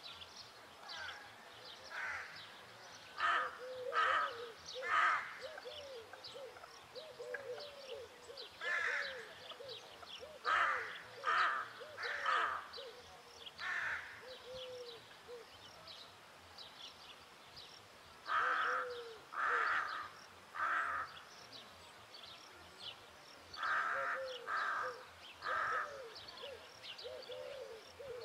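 Rook cawing, mostly in runs of three calls about a second apart, with pauses of a few seconds between runs. Fainter short low notes run underneath.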